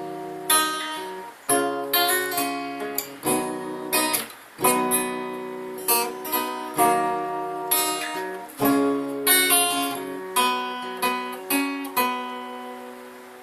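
Acoustic guitar strumming chords, each chord struck and left to ring and fade.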